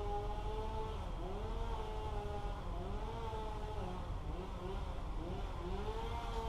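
A small engine-driven tool running at high speed, its pitch dipping and recovering again and again, the way an engine bogs and picks up as it takes load and lets go.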